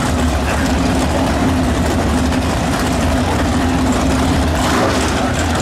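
Two super stock drag cars' V8 engines idling steadily, led by the 425-horsepower 1963 Chevrolet, with no revving.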